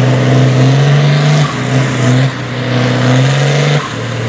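International Harvester 766 farm tractor's diesel engine revving in short surges, its pitch climbing and dropping back three times, as the tractor creeps forward hooked to the pulling sled.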